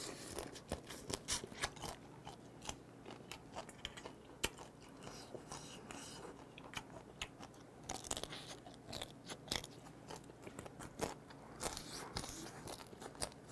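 Close-up eating sounds: sucking and chewing meat out of pieces of cooked swimming crab (kkotge), with many small cracks and clicks of the shell.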